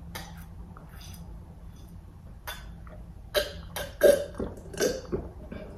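A person drinking juice from a glass close to the microphone, with gulping and swallowing sounds. There are a few soft ones at first, then a quick run of louder gulps in the second half.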